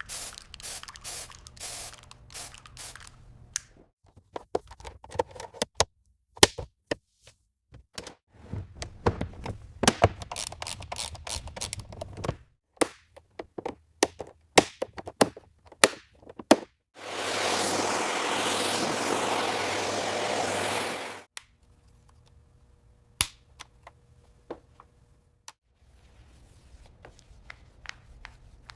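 Workshop tool sound effects: a long run of sharp clicks, taps and knocks, then about four seconds of steady hissing a little past halfway, followed by a few scattered clicks.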